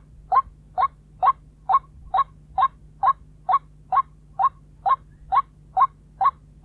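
White-breasted waterhen calling: one short, slightly rising 'kuok' note repeated at a very even pace, about two a second.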